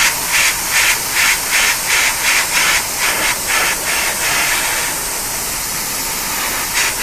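Airbrush hissing in short bursts of compressed air, about two a second, as paint is tinted on in quick trigger pulls; about two-thirds in, the hiss turns steady.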